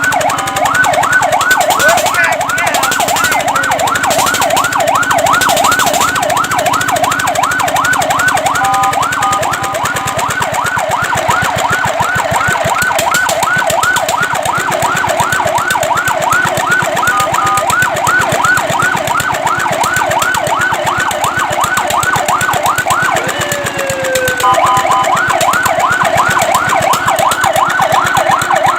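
Fire truck siren sounding a fast yelp, its pitch sweeping up and down several times a second, with a few short breaks where it changes pattern.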